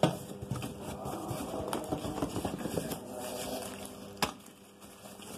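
Cardboard packing and plastic wrapping being handled as hands reach into the box and grip the moulded-case circuit breaker: rustling, crackling and scraping, with a sharp knock at the start and another about four seconds in.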